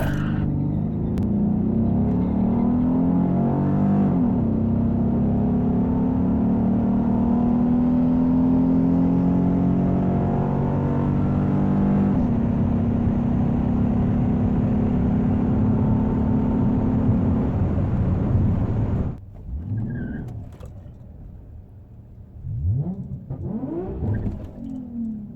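Car engine pulling hard at full throttle for about nineteen seconds, with shifts about four and twelve seconds in, then cutting off abruptly. Fainter engines rise and fall in pitch after that.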